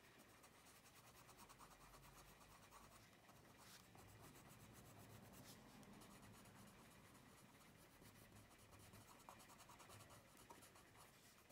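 Faint, steady scratching of a pastel green coloured pencil shading back and forth across the paper of a colouring-book page, applied with light pressure as a first underlayer.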